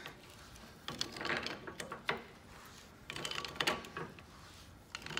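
Rust-seized adjusting nut of an old J.H. Williams wrench being turned with pliers, grating and creaking along its crusty threads in several short bursts as it works loose.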